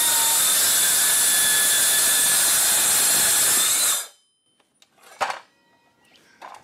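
Metabo cordless metal-cutting circular saw (cold saw) running steadily as it cuts through 12 mm steel plate, with a high-pitched whine over the cutting noise. It stops abruptly about four seconds in. A single knock follows about a second later.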